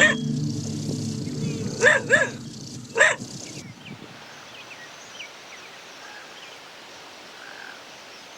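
A dog barking four times in the first three seconds over a low steady drone. About three and a half seconds in, the drone cuts off, leaving quiet outdoor ambience with faint, short high chirps.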